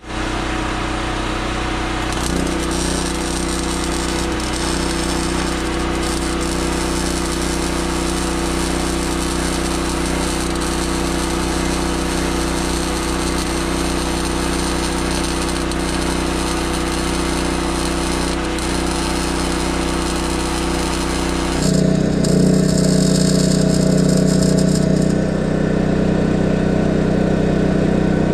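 MIG welding arc crackling and hissing steadily as a bead is run on a trailer frame, over the steady hum of a portable generator engine powering the welder. The hum grows louder about three-quarters of the way through.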